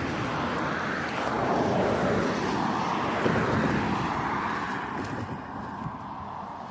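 A road vehicle passing by, its noise swelling over the first few seconds and then fading away.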